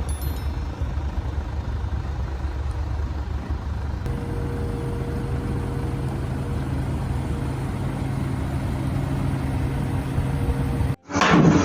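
Heavy vehicle's engine running steadily, with the sound shifting about four seconds in as a steady higher tone joins the drone. Near the end it cuts off abruptly and gives way to louder, knocking mechanical noise.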